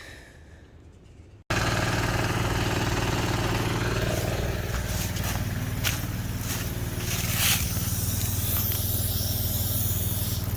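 Heavy diesel engine running steadily at idle, cutting in suddenly about a second and a half in after a quiet moment, with a few sharp knocks over the middle.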